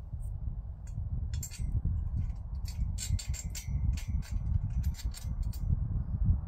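Wind rumbling on the microphone, with a run of light metallic clinks and ticks from metal tent-frame tubes being handled and fitted together, thickest around the middle.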